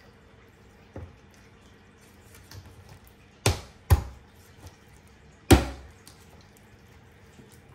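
A knife chopping raw chicken on a cutting board: a light knock about a second in, then three sharp chops, two in quick succession and one more about a second and a half later.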